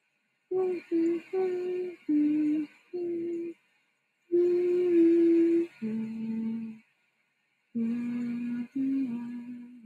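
A woman humming a slow, simple tune in held notes, phrased in three short groups with brief pauses, the melody stepping down lower in the later phrases.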